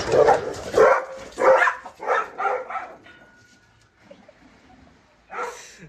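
A dog barking, about six quick barks over the first three seconds, then a short noisy burst near the end.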